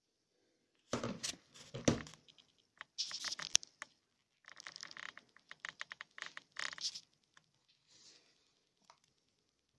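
Packaging being handled: a few knocks with dull thuds about a second in, then crinkling and rustling, with a quick run of crackles between about five and seven seconds.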